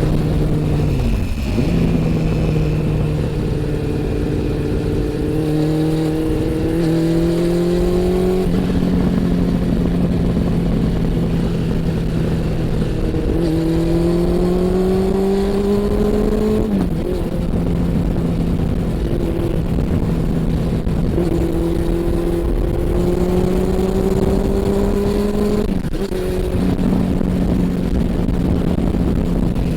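Honda CB400 Super Four (NC42) inline-four engine and exhaust under way. The engine note climbs steadily and drops sharply at about five gear changes.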